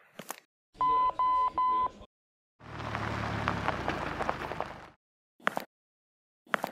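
Two-way radio sound effect: three short, even electronic beeps, then about two seconds of crackling static. A couple of short clicks near the end.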